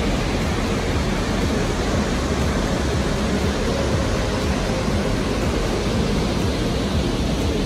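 Burney Falls, a tall waterfall, pouring steadily into its plunge pool: an even, unbroken rushing noise.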